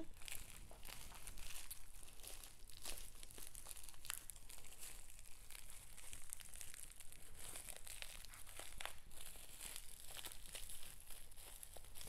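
Crinkling of a small plastic bag of river pebbles as it is handled and picked at to open it, a continuous run of irregular small crackles.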